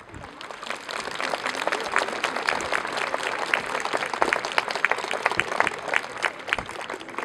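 Audience applauding: many hands clapping at once, swelling over the first second and thinning out near the end.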